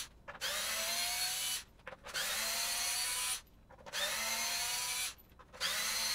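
Handheld power screwdriver backing out screws from a wooden speaker cabinet's rear panel. It runs in four short bursts of about a second each, its motor whine rising as it spins up at the start of each.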